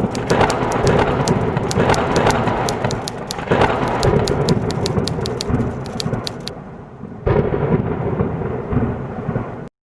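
Thunder and lightning sound effect: dense crackling electric snaps over a rolling thunder rumble with a rain-like hiss, a fresh surge about seven seconds in, then a sudden cutoff near the end.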